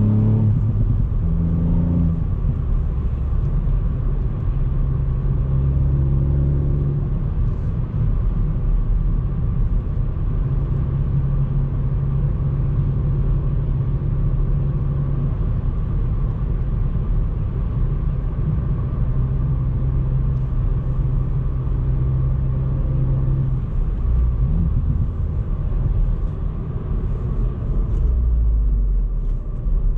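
Ford Fiesta ST Mk8's 1.5-litre turbocharged three-cylinder engine driving at light, steady cruise. Its low note holds level for several seconds at a time and changes pitch between stretches. It falls off and then rises again under acceleration near the end.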